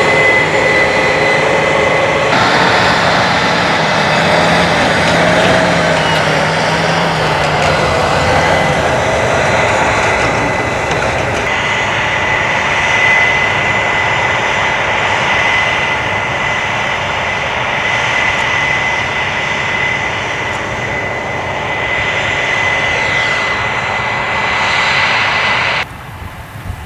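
A large engine running steadily, with a thin, steady high whine over it; it stops abruptly shortly before the end.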